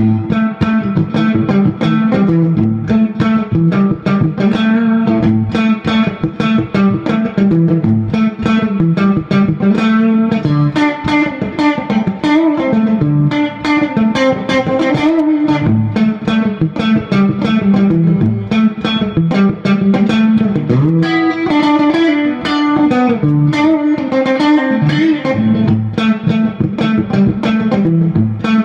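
Electric guitar played through a Fender Vibroverb clone tube amp: a busy, continuous run of rapidly picked single notes over a recurring low note.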